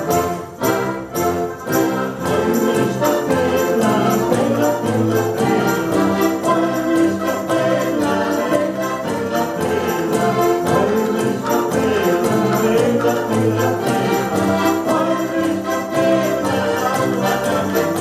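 An ensemble of button box accordions playing a polka together, full chords over a steady beat.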